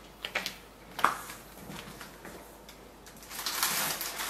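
Light clicks and knocks of kitchen items and ice molds being handled on a counter, the sharpest about a second in, then a short rush of hiss-like noise about three seconds in.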